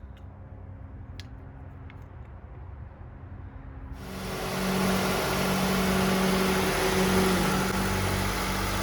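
A Honda Civic engine starts about four seconds in and settles into a steady idle, running the freshly fitted serpentine belt. Before it starts there are only a few faint clicks.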